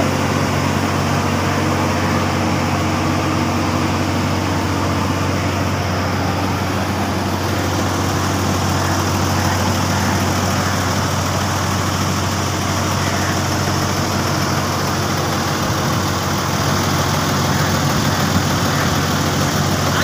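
Heavy diesel engines of an asphalt paver and a dump truck running steadily, a constant low drone that does not change.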